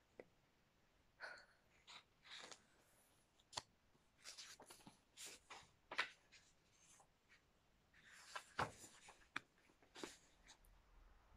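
Faint rustling and flicking of a paperback book's pages being turned, in short irregular bursts.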